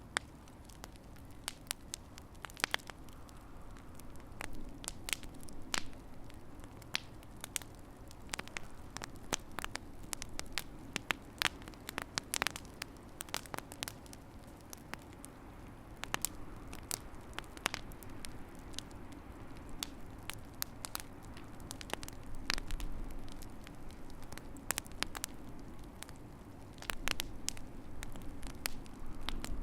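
Wood fire crackling in a fireplace: irregular sharp pops and snaps, sometimes several close together, over a steady low background noise of the burning fire.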